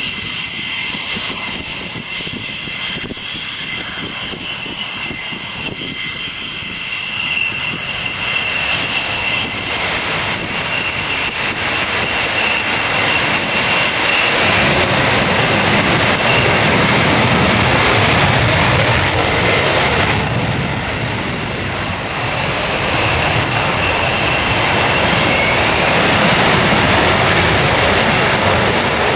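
Lockheed F-104 Starfighter jet engines running on the runway: at first a steady high whine, then about halfway through a louder, fuller rushing sound with a deep rumble as a jet rolls for take-off.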